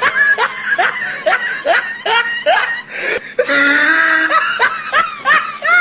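Laughter: a run of short falling 'ha' sounds, about two or three a second, broken a little after halfway by a longer, drawn-out high cry before the laughing picks up again.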